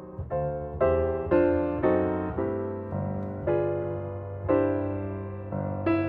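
Background music: slow piano notes, each struck and left to fade.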